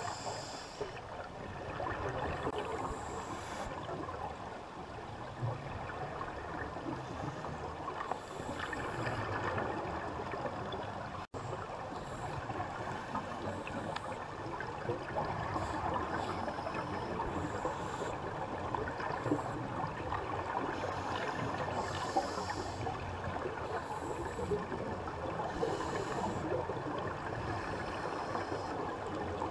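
Underwater sound through a GoPro's waterproof housing resting on the sea bed: a steady muffled rushing, with spells of hissing, bubbling scuba-regulator exhaust from nearby divers every few seconds.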